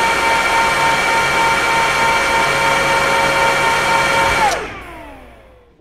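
Supermicro SYS-5015A-EHF-D525 1U Atom server's cooling fans running with a steady whine. About four and a half seconds in, a click as the server is switched off, and the whine falls in pitch and fades as the fans spin down.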